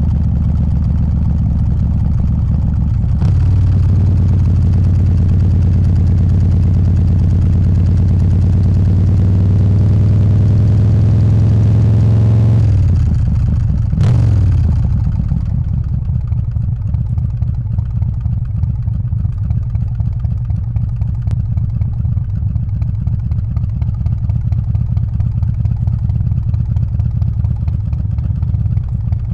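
Harley-Davidson Softail's 124-cubic-inch S&S Evo V-twin pulling under throttle, its pitch climbing slowly. About halfway through the throttle is shut, the pitch falls away with a single click, and the engine settles to a low, uneven, pulsing beat.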